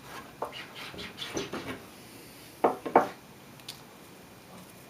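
Pieces of a wooden jig being handled: a few light taps, then two sharp knocks close together a little past halfway.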